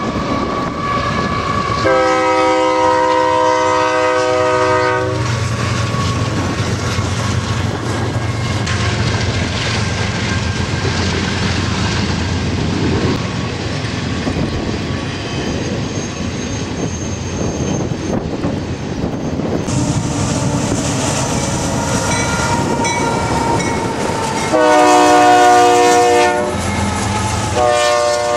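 Diesel freight locomotives' multi-chime air horn sounding a long blast, then the locomotives and train passing with engine rumble and clickety-clack of the wheels on rail joints. Near the end the horn sounds again, a long blast and then a shorter one.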